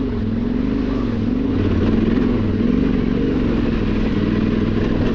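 Yamaha Ténéré 700 parallel-twin engine running at low revs through an aftermarket exhaust while the bike rides along, its pitch rising and falling gently with small throttle changes.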